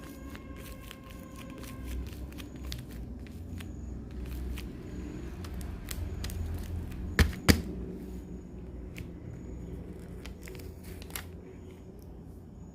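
Handling noises: scattered small clicks and taps over a low rumble, with two sharp knocks in quick succession about seven seconds in.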